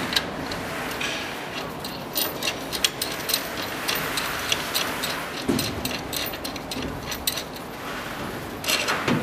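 Irregular small metallic clicks and taps as a bolt, washer and nut are fitted and turned by hand on a steel lift-door hanger bracket, with a soft knock about five and a half seconds in.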